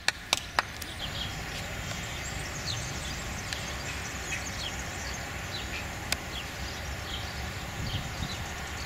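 Outdoor ambience with birds chirping on and off over a steady low background noise. A few faint clicks come just after the start, and one sharp click about six seconds in.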